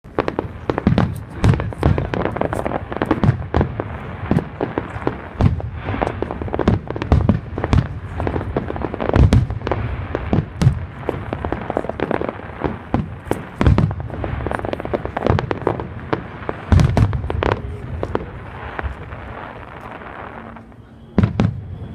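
New Year's fireworks going off in a dense barrage: many rapid overlapping bangs and booms over a constant crackle. About a second before the end the crackle thins out and two or three loud bangs follow.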